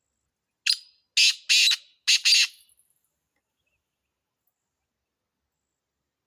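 Black francolin calling: one phrase of five harsh, loud notes, a short single note and then two quick pairs, over about two seconds.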